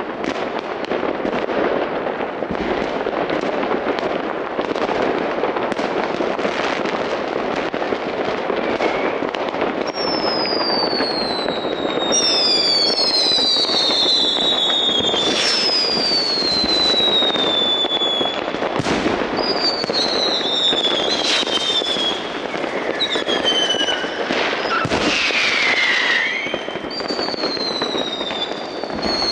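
Fireworks: a dense, continuous crackle of many firecrackers going off at once, broken by a few sharp bangs. From about a third of the way in, whistling fireworks add many high whistles that fall in pitch, often overlapping.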